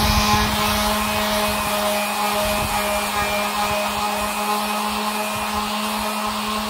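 Electric random orbital sander with an 80-grit disc running at steady speed while sanding a bare elm table top, a constant hum with the rasp of the abrasive on the wood.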